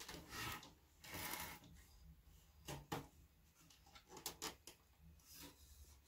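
Hands handling and turning a metal desktop computer case: two short scraping rustles in the first second and a half, then a scatter of small clicks and knocks.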